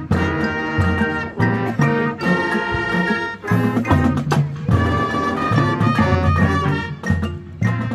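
Marching band playing: brass sustaining loud chords over a low drum pulse, with short breaks between phrases.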